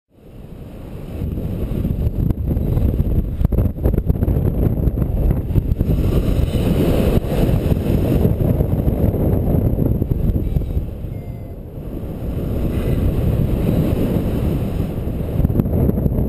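Wind rushing over the microphone of a paraglider pilot's body-mounted camera in flight: a steady, low, roaring rush of airflow that fades in at the start and eases briefly about two-thirds of the way through.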